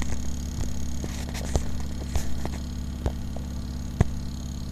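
Bedini-style pulse charger built from a rewound CPU fan running: a steady low hum, with about six sharp snaps at irregular intervals from the circuit sparking, the loudest about four seconds in.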